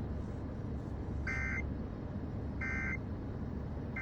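Emergency Alert System end-of-message signal on FM radio: short, warbling digital data bursts (the SAME "NNNN" code), two of them about 1.3 seconds apart, with a third starting right at the end, over a steady low rumble.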